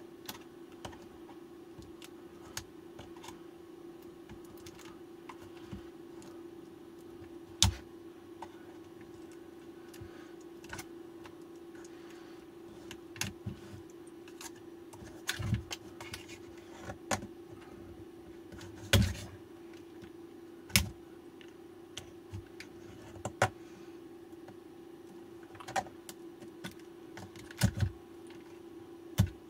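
Irregular clicks, taps and light scraping of a pick digging at silicone sealant in an e-bike battery pack, with a handful of sharper taps, over a steady hum.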